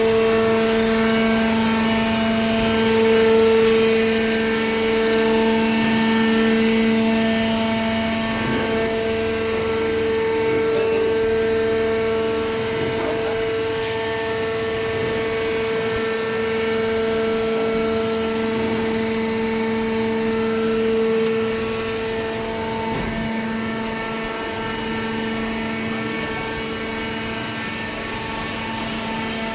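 Steady drone of a cardboard baler's motor running, one unchanging pitch with overtones, easing slightly in level in the last few seconds.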